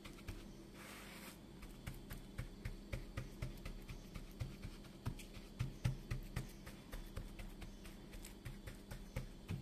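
Fingertips pressing and patting semolina harcha dough flat in a frying pan: soft repeated taps, about two or three a second, starting about two seconds in.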